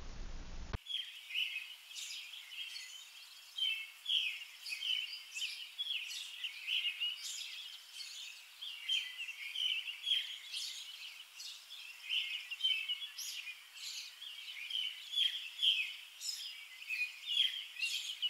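Small birds chirping, many quick high calls overlapping without a break.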